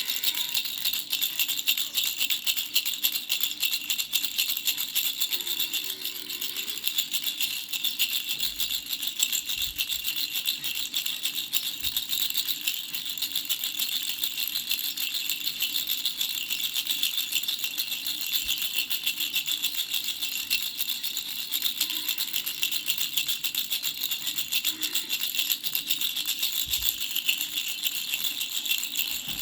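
Baby rattle with three small bells shaken continuously, a steady, fast, bright jingling.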